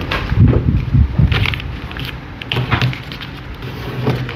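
Sheet of A4 paper rustling and crackling as it is handled and creased into a paper airplane, with a few dull thumps in the first second and a half.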